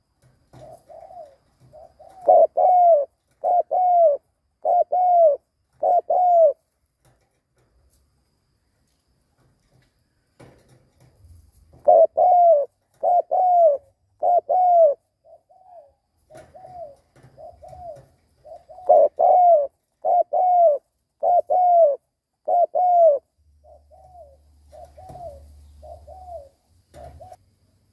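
Male spotted dove giving its rapid 'gù' bowing coo. There are three runs of about five loud, arching coos, one every half second or so, with softer single coos between the runs. This is the provoking call that a decoy dove gives to draw wild doves.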